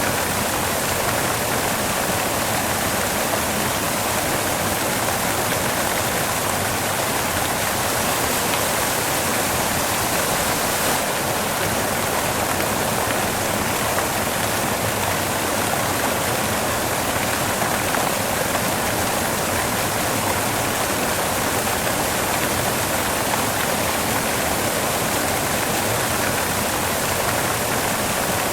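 Steady white noise: an even, unchanging hiss with most of its weight in the upper range and little bass.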